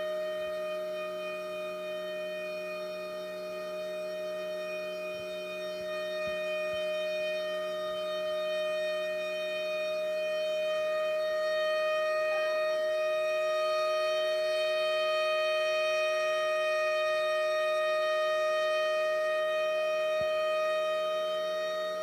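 Model 2B outdoor warning siren sounding a steady tone at full pitch, several notes together, with its loudness swelling slowly and growing stronger from about halfway through.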